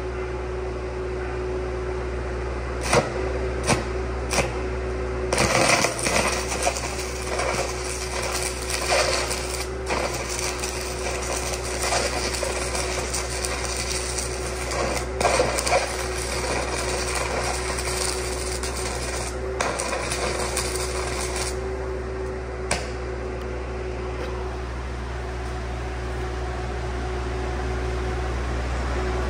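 A bundle of 1/8-inch 7018 stick electrodes burning at 800 amps. After a few sharp clicks, a dense, noisy welding arc starts about five seconds in and stops about 22 seconds in. Under it the 800-amp Air Pak engine-driven welder drones steadily throughout.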